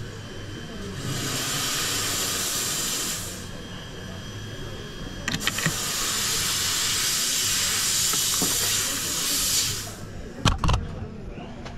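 Jeweller's small gas torch hissing in two bursts, one about two seconds long and then one about four seconds long, while soldering new prongs onto a gold coin bezel. A few clicks come just before the second burst, and a couple of knocks follow near the end.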